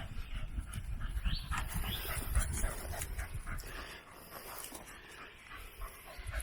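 A dog panting and whimpering in short, rising high-pitched whines over a low rumble.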